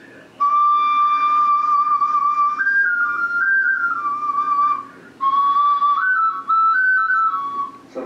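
Double clay ocarina played in two short phrases, each starting on a long held note, stepping up a few notes and back down. The two chambers sound together slightly off-pitch, giving a dissonant, multiphonic tone.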